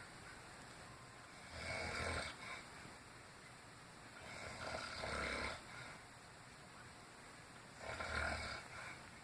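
An elderly woman snoring in her sleep: three snores, each about a second long, roughly three seconds apart.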